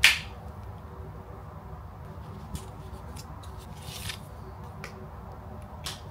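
A sharp click as the three-pin UK plug head snaps onto an Apple USB-C power adapter. Quieter handling noises follow: a few light plastic clicks and a short rustle as the coiled charging cable and its wrap are handled.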